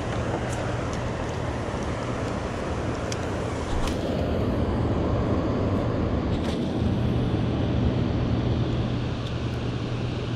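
Steady rushing background noise with a constant low hum under it, growing slightly louder about four seconds in, with a few faint clicks.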